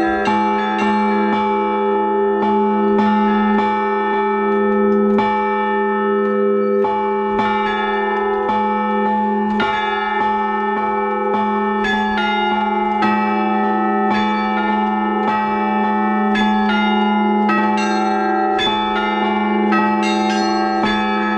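Church bells ringing: several bells struck in an irregular peal, about once or twice a second, each strike ringing on over the steady hum of a large, low-pitched bell.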